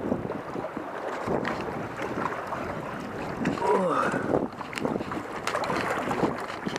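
Small lake waves washing and splashing against concrete blocks at the water's edge, with wind on the microphone. About halfway through there is a brief rising cry.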